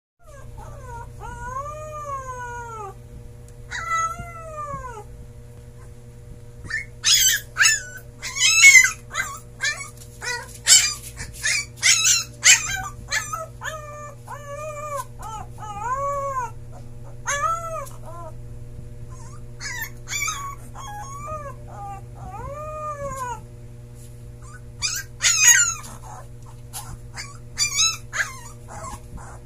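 Husky puppy howling: a string of short, high-pitched howls that rise and then fall in pitch, mixed with yips and whimpers. The calls come thickest and loudest from about seven to thirteen seconds in, with another burst near the end.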